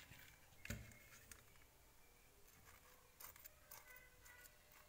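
Faint, scattered ticks of a knife tip picking at an eggshell to open a small hole in it.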